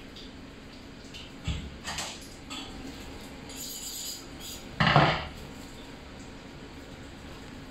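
Fillet knife and tools handled on a plastic cutting board: a few light knocks, a brief scrape, then one loud sharp knock about five seconds in.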